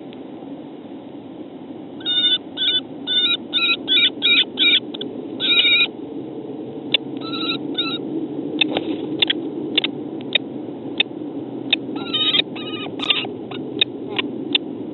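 Two female common kestrels calling at each other in a squabble: bursts of short, rapidly repeated calls starting about two seconds in, then scattered single sharp notes and shorter call runs, over a steady low background noise.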